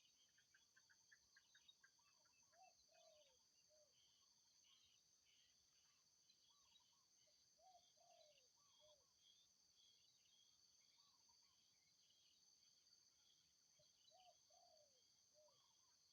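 Wild birds calling faintly over a steady high drone of insects such as crickets or cicadas. One bird repeats a short phrase of three falling notes about every six seconds. Other birds add scattered higher chirps and a quick run of ticking notes near the start.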